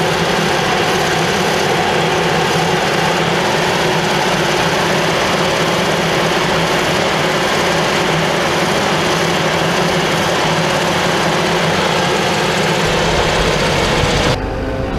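Claas Jaguar 970 self-propelled forage harvester running close by, a loud, steady, dense drone of engine and chopping machinery, with a tractor pulling alongside. Near the end it cuts off suddenly to a quieter, lower tractor engine rumble.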